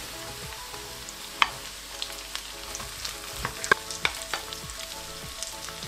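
Chopped onions frying with spices in hot oil in a kadhai, a steady sizzle. Sharp clicks of the stirring spoon against the pan are scattered through it, several bunched together near the middle.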